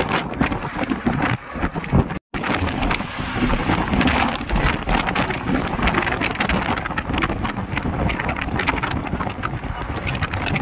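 Wind buffeting the microphone over the road and engine noise of a car driving at speed, picked up at the car's side window. The sound drops out completely for a split second about two seconds in.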